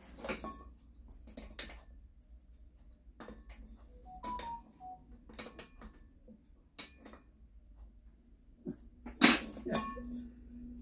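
Scattered light metal clinks and knocks from a brazing torch and small tools being handled on a work mat, with one sharp, louder click about nine seconds in.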